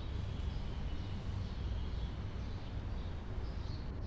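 Outdoor background sound: a steady low rumble with a few faint, thin, high chirps.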